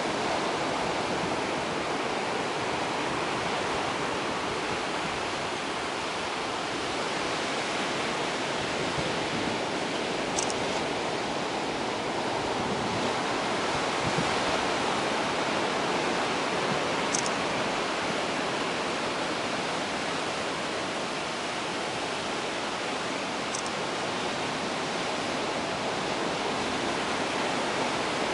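Ocean surf breaking and washing in over a rocky shore, a continuous rushing wash that swells and eases gently.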